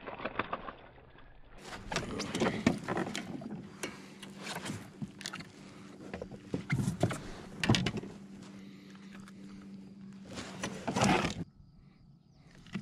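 A hooked bass splashing at the surface, then being landed into a plastic fishing kayak, with irregular knocks and rattles of fish and gear against the hull and deck. A steady low hum runs underneath and stops near the end.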